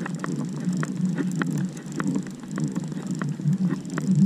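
Trolling reel being cranked in, ticking about three times a second, over the steady low running of the boat's motor.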